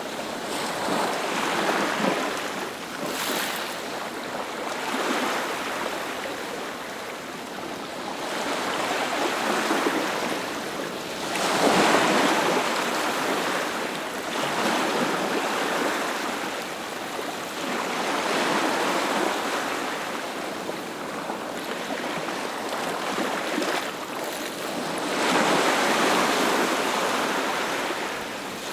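Ocean surf: waves breaking and washing up the shore in slow swells that rise and fade every few seconds, the loudest about twelve seconds in.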